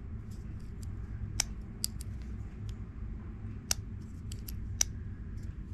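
CJRB Shale folding knife being handled: about seven light, sharp metallic clicks at irregular intervals as the blade and lock are worked.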